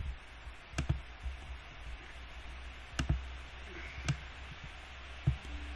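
A few sharp computer mouse clicks, about four scattered through, over a steady low hum and faint hiss.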